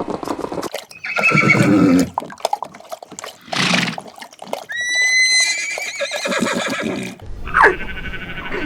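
Horse whinnying in several separate calls.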